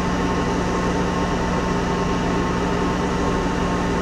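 Monarch 10EE toolroom lathe running, a steady hum with a few held tones.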